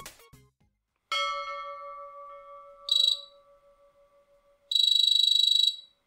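A single bell-like ding that rings out and fades over about three seconds, then two high electronic trilling buzzes: a short one, and a second lasting about a second near the end.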